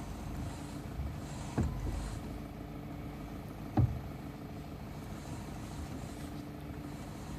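Vehicle engine running steadily, with two sharp knocks about two seconds apart, the second louder: the knock the owner is recording.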